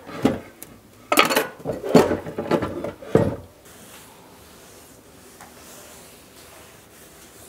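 Dishes and utensils clattering at a kitchen sink, with several sharp knocks over the first three and a half seconds. After that comes a faint steady rubbing as a cloth wipes down a wooden countertop.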